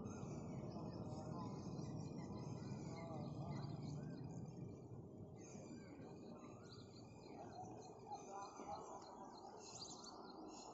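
Birds chirping and twittering over a faint, steady wash of background noise, with a thin pulsing trill through the first half.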